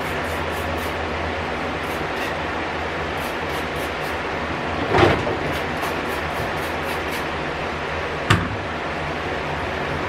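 Refrigerator shelves and bins knocking as they are handled during cleaning: a knock about halfway through and a sharper one near the end, over a steady hiss.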